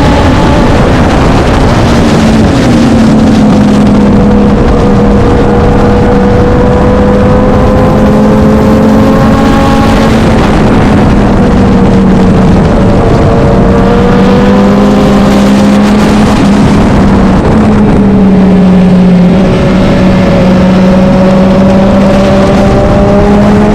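Vintage racing motorcycle engine running hard under load, its pitch climbing and then dropping again several times as it goes through the gears.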